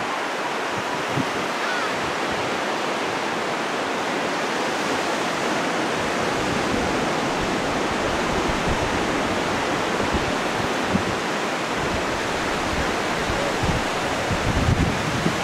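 Steady rushing of sea surf and wind, with a few low wind thumps on the microphone, more of them near the end.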